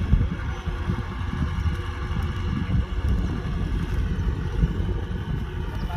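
Kubota DC-105X combine harvester running steadily, its diesel engine droning with a dense, rough low rumble.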